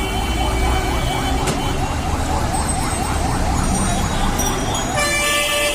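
Traffic-jam din: a siren-like electronic horn yelps in rapid repeating rising sweeps over steady vehicle horns and engine rumble. A burst of hiss comes near the end.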